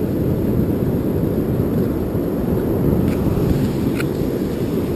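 Wind buffeting the microphone over the wash of surf, a steady low rumble, with two faint clicks about a second apart near the end.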